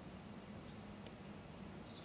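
Faint, steady, high-pitched drone of an insect chorus singing in the garden, unbroken throughout.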